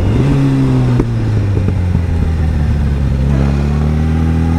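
Motorcycle engine heard from on board, running steadily, with a single click about a second in; in the second half its pitch climbs gradually as the bike accelerates. Wind rush runs underneath.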